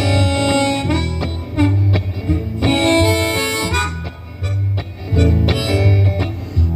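Harmonica playing long held notes in phrases over a steady guitar accompaniment, an instrumental break in a live song.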